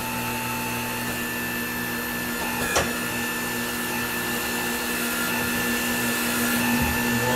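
Hunter Revolution tire changer running its automatic tire-demount cycle with the go pedal held: a steady electric motor hum and whine as the wheel is turned, with a single sharp click about three seconds in.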